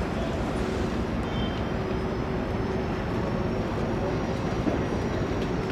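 Steady low rumble of a large cruise ship's open-deck ambience, with a faint steady hum of machinery underneath.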